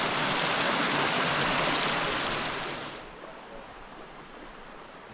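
Rushing stream water, a steady hiss that drops to a much quieter wash about three seconds in.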